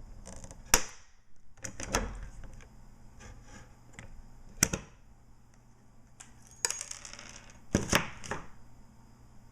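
Hand pop rivet gun being squeezed to set a pop rivet joining two sections of antenna element tubing: a series of sharp metallic clicks a second or two apart.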